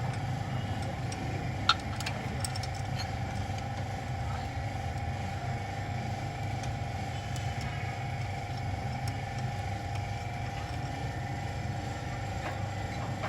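Toyota GLi car engine idling steadily, with a few light clicks in the first few seconds.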